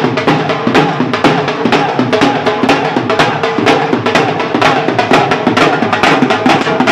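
Dhol drums, two-headed barrel drums beaten with sticks, played together in a fast, even beat of sharp strikes.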